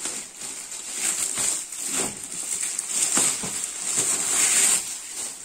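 Shiny metallic gift wrap being torn and crinkled off a large boxed present, with plastic sheeting rustling, in irregular rips and crackles.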